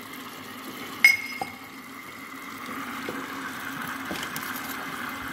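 Vacuum filtration set-up still under suction, with a steady hum and a hiss that grows stronger from about halfway. About a second in there is one sharp glass clink with a brief ring as the Büchner funnel is taken off the filter flask.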